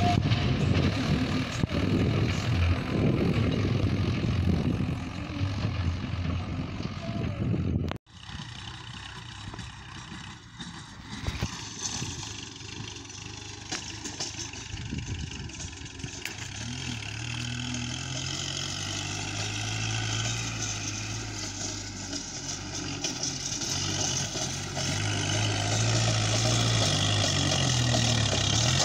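Diesel tractor engine hauling a trolley loaded with soil along a dirt track: loud and rumbling close by for the first several seconds, then after a sudden cut much quieter, with a steady engine hum that slowly grows louder as a loaded tractor approaches across the field.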